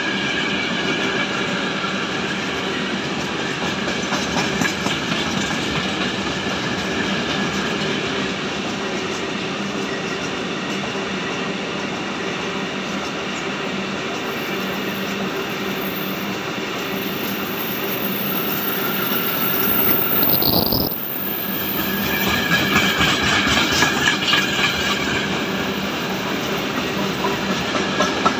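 A long freight train of covered steel-coil wagons rolling past at speed: a steady rumble of wheels on rail with clickety-clack and some ringing from the wheels. About twenty seconds in, the sound swells and then drops away abruptly. After that the wheel beats come through as a clear rhythm.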